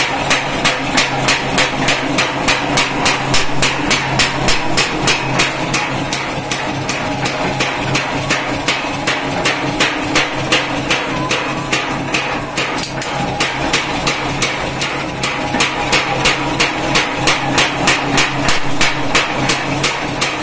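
Mechanical power hammer running, its ram striking in a steady, rapid rhythm of about three to four blows a second, over the steady hum of its drive.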